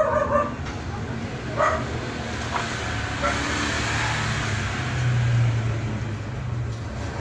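A passing motor vehicle: a low engine hum that swells in the second half, then eases off. A short, sharp call, perhaps a dog, comes about a second and a half in.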